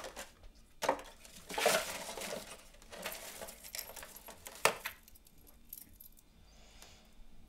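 Metal bead chain clinking and jangling as it is handled and pulled out of a cardboard box, with a few sharp clicks and the rustle of handling in the first few seconds, then only faint small sounds.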